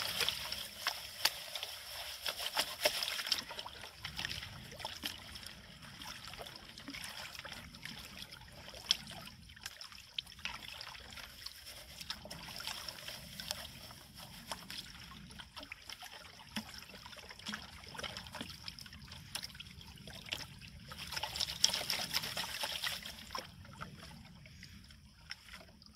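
Gold pan being worked in creek water: water sloshing and trickling as the top layer of gravel is washed off, with many small clicks of stones in the pan. The washing is louder for the first few seconds and again near the end.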